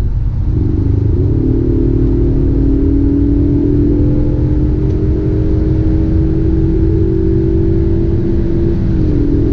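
2021 Ford Mustang EcoBoost's 2.3-litre turbocharged four-cylinder under hard acceleration. Its pitch drops with a 10-speed automatic upshift about a second in, climbs slowly for several seconds, then drops with another upshift near the end.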